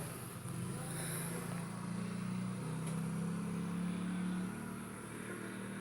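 A steady low mechanical hum, like a motor running nearby, its pitch dipping slightly about halfway through.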